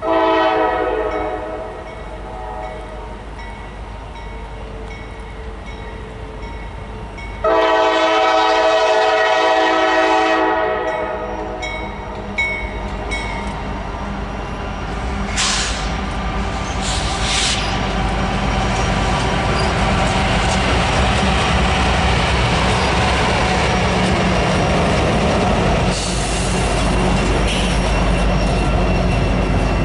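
Freight train locomotive horn sounding twice, a short blast and then a longer one a few seconds later. Then the train rolls past close by with loud, steady wheel-on-rail noise.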